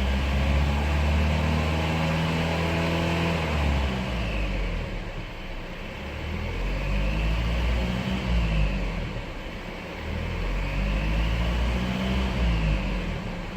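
2017 Volvo XC60 D3's 2.0-litre four-cylinder diesel engine running, its revs rising and falling about three times, with a faint whistle from the engine bay that rises and falls with the revs. The whistle has no known cause: intake-pressure checks, a tubing inspection and a DPF regeneration did not cure it.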